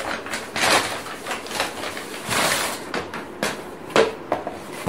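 Brown kraft paper wrapping being torn open and rustled as a cardboard box is pulled out, with a few sharp knocks near the end as the box is handled on a wooden table.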